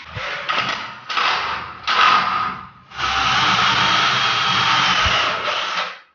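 Cordless drill running against a wooden stud frame in four runs: three short runs, then one long steady run of about three seconds starting about three seconds in.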